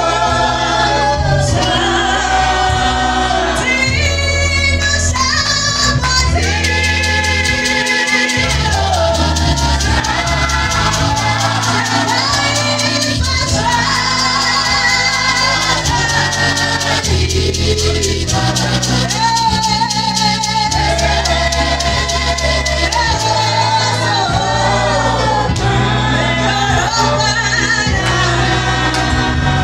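Live gospel worship song sung in Shona: a woman's lead voice on a microphone with backing singers joining, over a steady bass line and beat.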